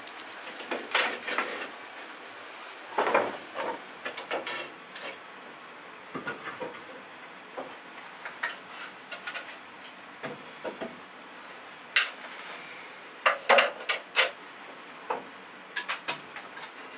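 Old wooden boards knocking and clattering as they are handled and laid as slats across a wooden frame: irregular knocks in scattered groups, the loudest a little after twelve seconds in and again about a second later.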